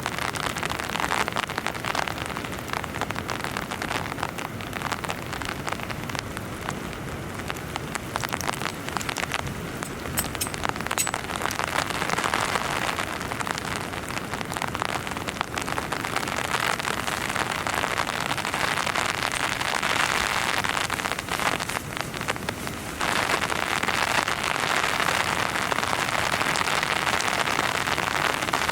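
Heavy rain falling steadily on a tent, a dense patter of drops. It gets abruptly louder about 23 seconds in.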